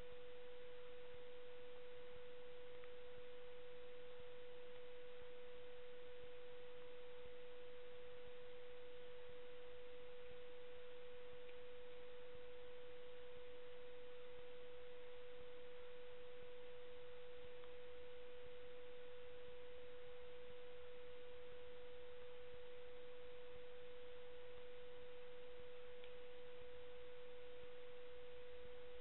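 A steady, high-pitched electronic tone on one pitch with faint overtones, over a low hiss, holding unchanged throughout.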